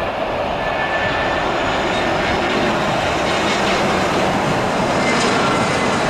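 Airbus A320-214 jet engines on final approach: a steady jet rush with a faint whine, growing slightly louder as the airliner comes closer.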